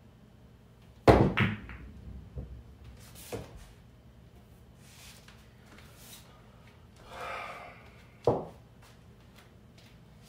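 A pool cue strikes the cue ball about a second in, the loudest sound, and billiard balls clack together and knock against the table's cushions over the next two seconds. A short rustle and one more sharp knock follow near the end.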